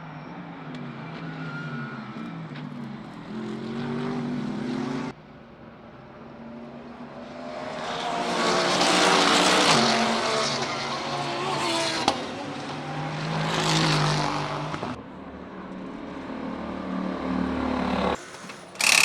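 Race cars passing at speed, their engines revving up and falling away through gear changes. The loudest passes come in the middle. The sound changes abruptly three times, as separate pass-bys are cut together.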